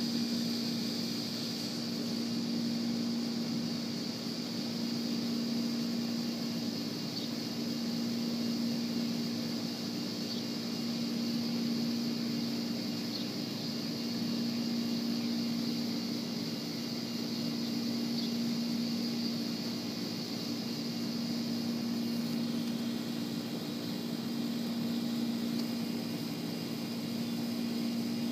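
A steady low hum with a steady high hiss above it, unbroken throughout, with a few faint short high ticks here and there.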